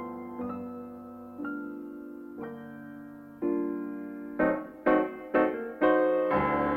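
Jazz piano music: a slow ballad with chords struck about once a second and left to ring, turning louder and quicker from about four and a half seconds in.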